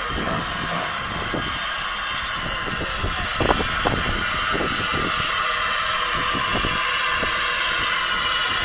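Peckett 0-4-0 saddle tank steam locomotive moving slowly, with a steady hiss of escaping steam and irregular knocks and chuffs.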